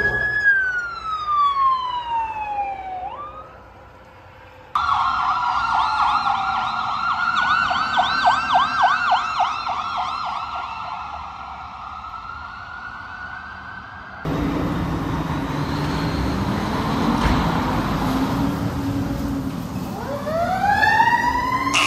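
A run of emergency vehicle sirens. First a siren falls in pitch for about three seconds, then after a short quiet gap an electronic siren wails and switches to a fast yelp for a few seconds. After that comes a rumble of engine and road noise, with a siren winding up, rising in pitch, near the end.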